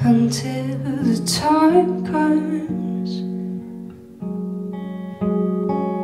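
Acoustic guitar song: a singing voice over guitar chords for the first two seconds or so, then the guitar playing on alone.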